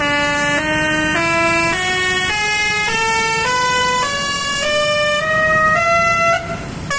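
Basuri 'telolet' musical bus horn playing a slow rising scale of about eleven held notes, each about half a second long, stopping about six seconds in.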